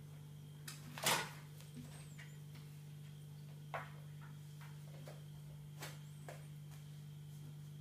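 A few soft knocks and scrapes of a kitten's paws on a windowsill as it pounces at a feather teaser, the loudest about a second in, smaller ones near four and six seconds, over a faint steady low hum.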